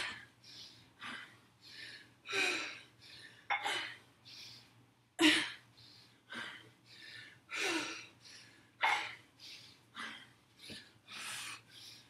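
A woman breathing hard and fast from the exertion of dumbbell shoulder presses with squat jumps: short, forceful exhales and inhales about one or two a second, a few of them sharper and louder.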